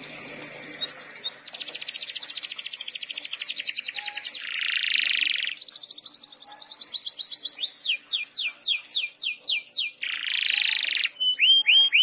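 Domestic canary singing a long song of changing phrases: a fast trill, a harsh buzzy burst, a high rapid trill, then slower falling whistles about four a second, a second harsh burst, and falling notes near the end.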